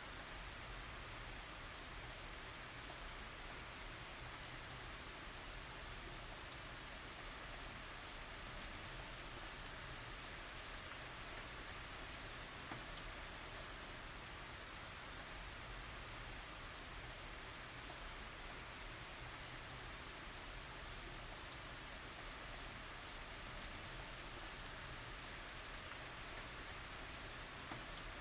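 Steady tropical rain falling on surfaces, an even hiss with many fine drop ticks and no thunder.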